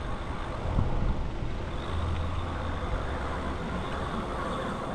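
Steady road-vehicle noise: a low rumble with a hiss over it, with no single clear event.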